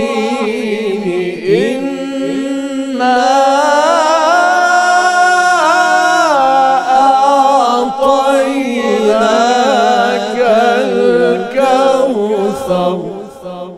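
Men's voices chanting a melodic Quran recitation together, unaccompanied, holding long ornamented notes that rise and fall, and fading out near the end.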